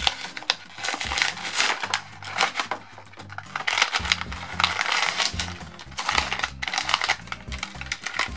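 Clear plastic toy bags crinkling and rustling in bursts as small figures are unwrapped by hand, over background music with a stepping bass line.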